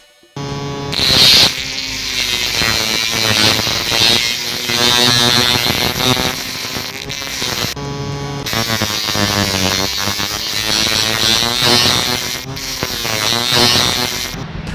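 Miniature grinder built on a small DC motor, running with its pitch rising and falling as the speed changes, with a high hiss on top. The sound breaks off briefly about eight seconds in.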